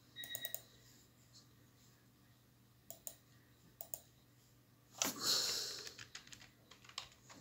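Computer mouse and keyboard clicks while a lineup is edited on screen: a quick cluster of clicks at the start, pairs of clicks around three and four seconds in, then a run of small taps near the end. A brief louder rush of noise comes about five seconds in.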